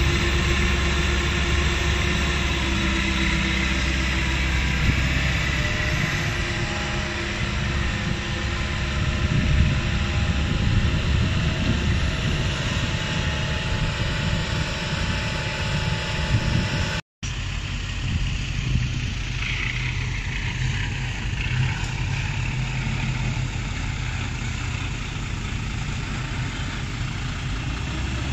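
Komatsu PC160LC hydraulic excavator's diesel engine running steadily while the machine digs and swings. It breaks off for a moment about seventeen seconds in and resumes a little quieter.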